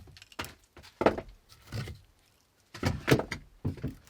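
A series of irregular knocks and thuds with some scraping, from clearing debris out of a space.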